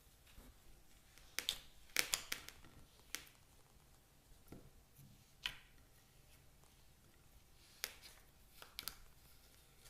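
Slime being worked by hand, giving faint, scattered sharp clicks and pops, some in quick clusters of two or three.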